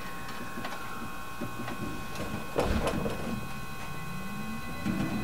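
JR West 223 series electric train's motor car standing, with a steady hum of onboard equipment and faint clicks. A loud clunk comes about two and a half seconds in. Then the VVVF inverter whine starts and rises in pitch as the train begins to pull away.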